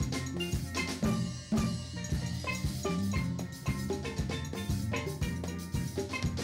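Steel band playing an instrumental tune: steel pans struck with mallets in quick ringing notes, over conga drum and percussion keeping a steady beat of about two strokes a second.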